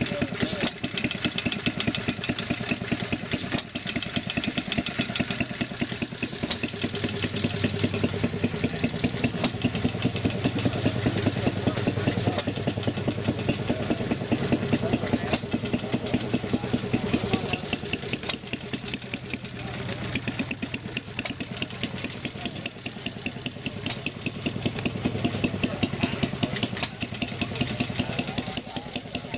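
Small antique stationary gas engines running, a steady, regular beat of rapid firing strokes that dips a little about two-thirds of the way through.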